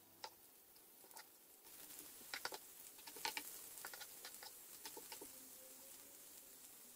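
Diced red onion and garlic sizzling faintly in oil in a non-stick wok, with scattered small pops and crackles; the hiss grows a little about two seconds in.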